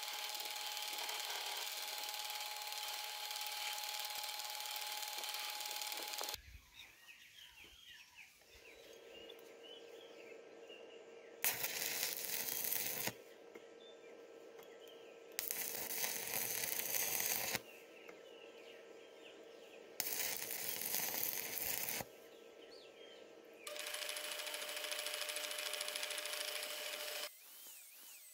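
Metal lathe running with a part spinning in its chuck, a steady hiss with a held tone, for about six seconds. Then stick arc welding on the part held in the chuck, in four bursts of about two to three and a half seconds each, with a steady hum between them.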